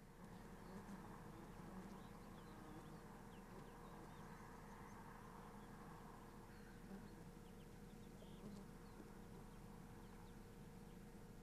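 Near silence: faint outdoor ambience with a steady low hum and a few faint, short high chirps scattered through it.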